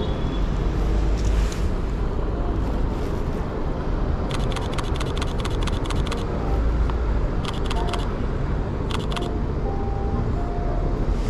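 Mirrorless camera shutter firing in rapid bursts of clicks: a burst of about two seconds some four seconds in, then two shorter bursts. Underneath is a steady hum of city street traffic.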